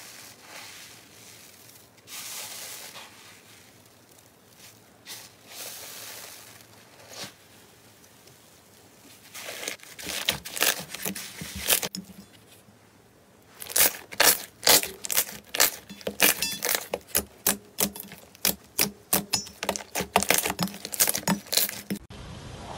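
Hands squishing slime: soft squishing swells as a palm presses into fluffy slime, then, about halfway through, quick runs of sharp wet clicks and pops as fingers work a glossy slime and push air pockets out of it.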